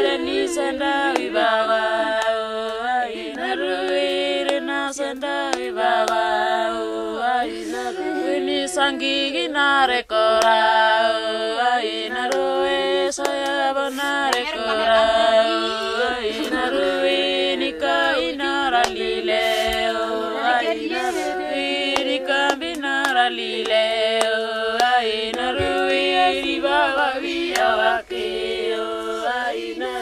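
Women singing an unaccompanied lament, a chant-like song that carries on with only two brief breaks.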